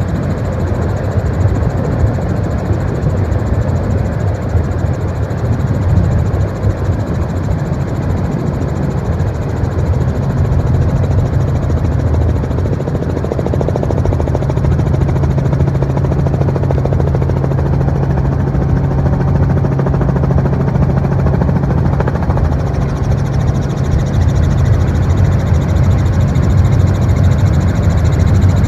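Helicopter engine and rotor running steadily: a loud, continuous drone with a steady low hum.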